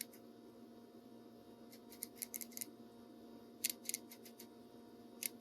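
Duratech 72-tooth 1/4-inch drive flex-head ratchet worked back and forth, its pawl giving short runs of faint clicks in four groups. The clicking sounds like it is skipping several teeth at a time. A steady low hum runs underneath.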